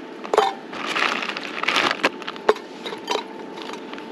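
Plastic food bag rustling and about four sharp clicks and taps as egg dumplings are taken out and laid in a ceramic bowl inside a steel pot.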